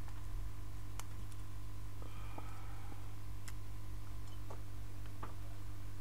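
Steady low electrical hum with a few light clicks and taps scattered through it, about one a second, from small tools and phone parts being handled on a repair bench.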